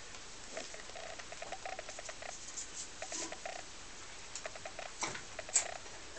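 Rabbits chewing hay: quick crunching clicks in several short runs, with a sharper crackle near the end.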